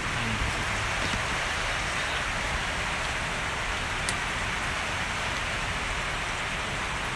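A steady, even hiss that holds unchanged throughout, with no distinct events in it.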